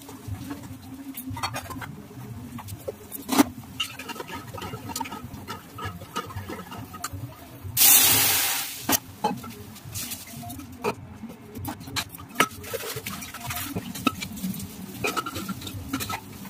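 Cooking at a gas stove: a steel wok and utensils clink and knock now and then. About eight seconds in, food goes into hot oil with a sudden loud sizzle that dies down over about a second.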